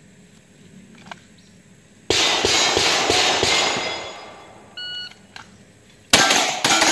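Electronic shot timer beeps once, then a pistol fires, with the first shot about a second and a half later and two more in quick succession, steel target plates clanging with the hits. Earlier, about two seconds in, there is a loud clattering noise lasting about two seconds.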